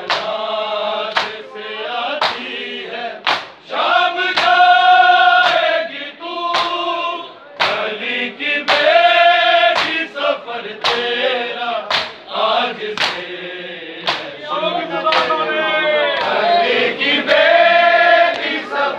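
A crowd of men chanting a Shia noha (mourning lament) in chorus, with sharp open-handed chest-beating (matam) slaps about once a second, keeping time with the chant.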